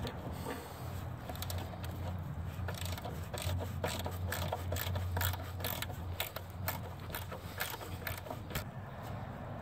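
Ratchet wrench clicking in quick, irregular runs as a clamp bolt holding the AC line is backed out, from about two seconds in until near the end.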